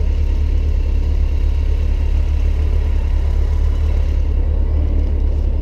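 Motorcycle engines idling, a steady low rumble.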